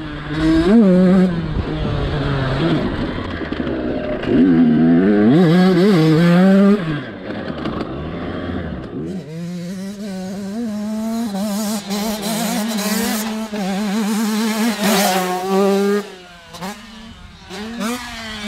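Husqvarna TC85 two-stroke motocross bike ridden hard, its engine revving up and falling back again and again. About halfway through it holds a steadier high rev, then falls away near the end.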